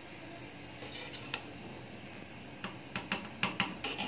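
Metal slotted spatula clinking and scraping against an aluminium cooking pot as the steamed biryani rice is dug into and turned: a couple of light clicks about a second in, then a quick run of sharper clinks near the end.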